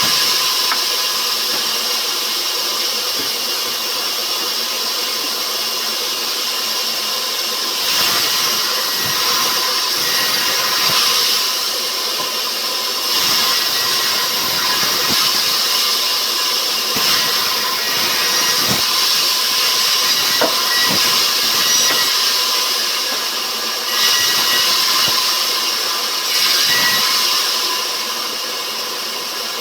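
Sawmill machinery running as it works rubber wood: a steady loud hiss with a faint whine under it, swelling louder every few seconds.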